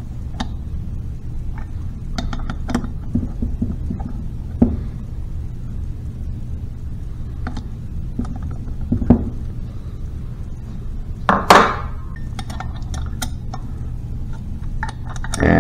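Hand tools and metal parts clicking and clinking on a Harley five-speed transmission's shift drum assembly as the pillow block bolts and spring are fitted. A steady low hum runs underneath, and there is one louder clunk about three-quarters of the way through.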